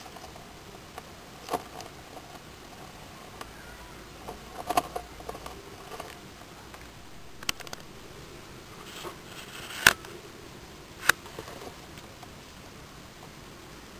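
Two hermit crabs grappling on gravel substrate: scattered light clicks, taps and scratching as their shells and legs knock together and scrape the gravel, with two sharper clicks near the end.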